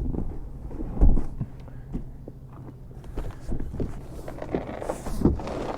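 Knocks, bumps and clatter of equipment being handled and shifted around, with a loud thump about a second in and another near the end.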